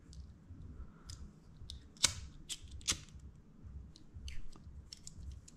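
Fishing line and small tackle being handled up close: faint rustling and light clicks, with two sharper clicks about two and three seconds in.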